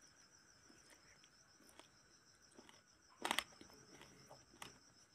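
Faint, steady high trill of crickets, with soft ticks and one short crackle about three seconds in from someone eating by hand.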